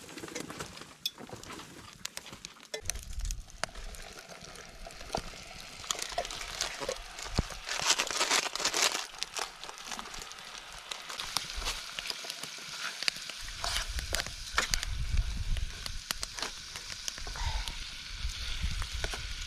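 Food frying and sizzling in camp cookware, with scattered clinks and scrapes of utensils against the pots and pan. A louder stretch of hissing comes about eight seconds in.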